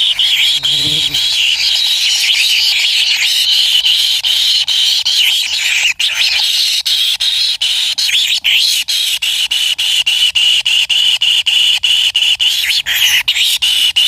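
Kingfisher nestlings in a burrow nest calling, a steady high buzzing chatter that turns into fast rhythmic pulsing, about three beats a second, in the second half.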